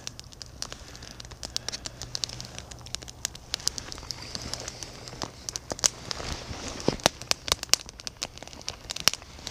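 Small pellet fire in a camp stove crackling, with many irregular sharp pops and clicks.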